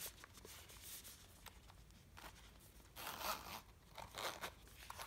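Metal zipper drawn open around a lipstick case in short rasping pulls, the loudest about three seconds in, with light handling of the case between them.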